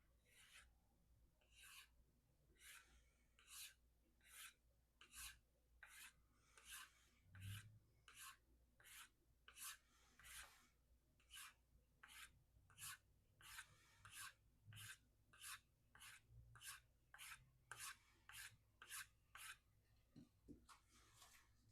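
Faint rubbing strokes of a VG-10 knife blade drawn along a strop, a little over one stroke a second, stropping the edge to knock off leftover fibres.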